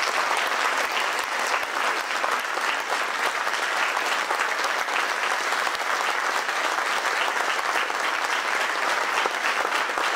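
Audience applauding steadily: many hands clapping at once in a large hall.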